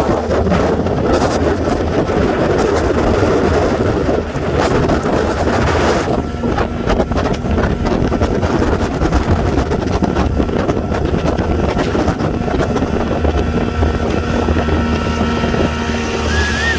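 Small boat's motor running steadily under way, with wind rushing over the microphone; a thin steady whine joins in about six seconds in.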